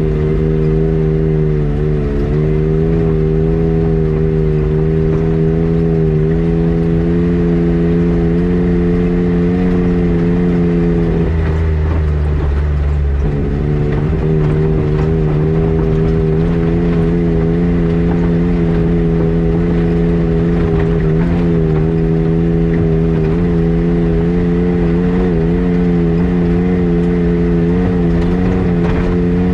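A motor vehicle's engine drones steadily at cruising speed with road noise. Its note breaks briefly about eleven seconds in, then settles back to the same pitch.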